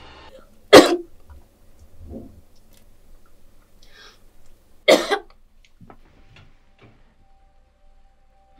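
A person coughing hard twice, about four seconds apart.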